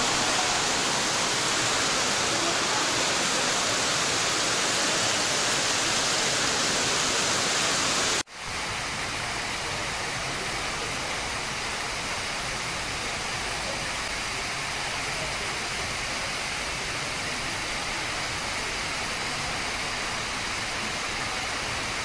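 Steady rushing of a large waterfall close by. About eight seconds in the sound cuts off abruptly and carries on a little quieter.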